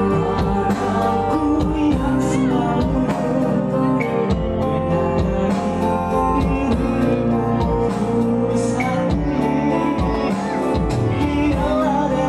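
Amplified live band music: a man singing through a microphone, backed by electric guitar and a Yamaha electronic keyboard with a steady beat.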